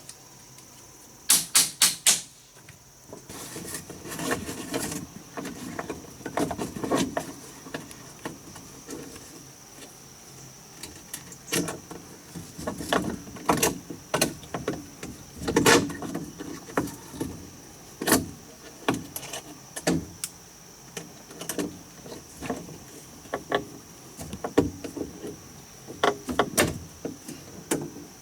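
Hand building work with wood: a quick run of four sharp knocks about a second in, then irregular knocks, taps and rubbing or scraping.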